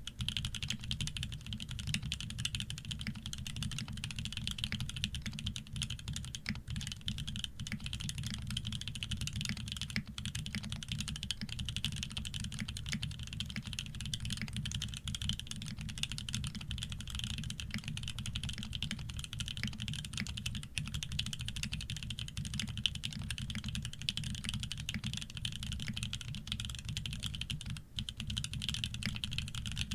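Fast, continuous typing on a Shark60 custom mechanical keyboard with lubed OP Black switches, 150 g springs, PBT keycaps and an aluminium plate with no foam; the keystrokes run together without a pause.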